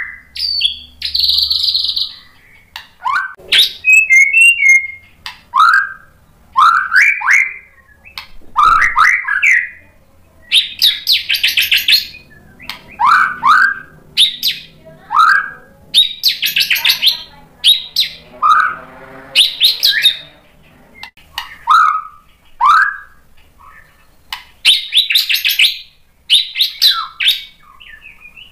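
White-rumped shama (murai batu) in full song: loud, varied phrases every second or two, mixing rising whistled notes with fast rattling trills and chattering runs of mimicked material.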